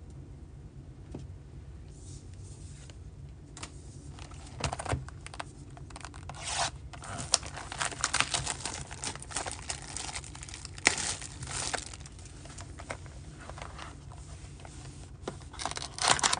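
Clear plastic shrink wrap being torn and crinkled off a sealed trading card box, in irregular crackling bursts. It starts about two seconds in, is busiest in the middle, and flares again near the end.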